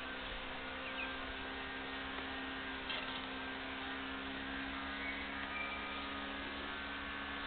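Steady electrical hum over a constant hiss, with a few faint short high squeaks or chirps on top.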